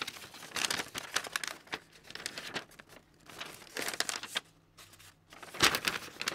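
A folded paper instruction leaflet being handled and unfolded, rustling and crinkling in irregular bursts, with a sharper, louder rustle near the end.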